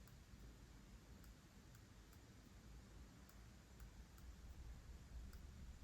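Faint, irregular ticking clicks, about one or two a second, from an IcePower 300AS1 amplifier module in a Kemper Power Kabinet while it is switched off. This is the fault noise that the owner suspects comes from an oscillation in the board's circuitry.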